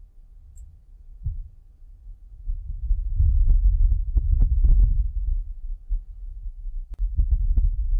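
Wind gust on Mars buffeting the Perseverance rover's microphone: a low rumble that swells about two and a half seconds in, peaks around four to five seconds, and returns near the end. The recording is filtered to remove the rover's own noise.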